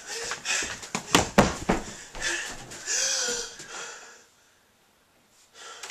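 A person breathing hard and wheezing in fright, with two sharp knocks a little after a second in; the breathing dies away toward the end.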